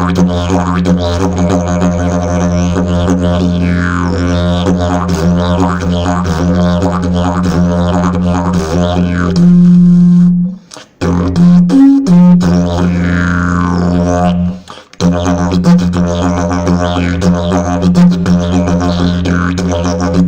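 Fiberglass slide didgeridoo played as a continuous low drone, its overtones shifting in a rhythmic pattern, with two rising overtone sweeps. The drone breaks off briefly twice past the middle, then picks up again with a loud hooting toot.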